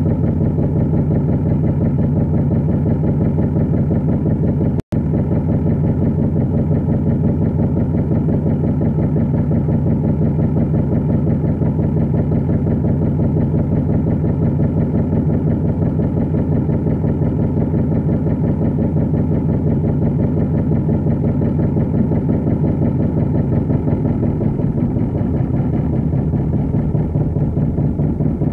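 Inboard engine of a motor cruiser running steadily under way, a loud, fast even chugging, with a slight change in its low tone near the end. The sound cuts out for a split second about five seconds in.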